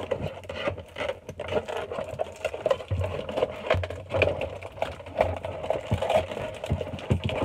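Cardboard and plastic toy packaging rustling and crinkling as it is pulled apart by hand, a dense run of small crackles and scrapes.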